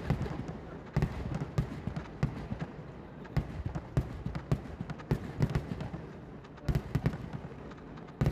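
Fireworks going off in rapid, irregular succession: a steady stream of sharp bangs and cracks with no pause.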